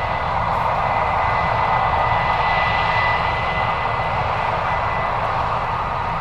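Case IH 8250 combine harvester running steadily under load as it harvests corn: a continuous mechanical drone with a low rumble and a thin, steady high whine.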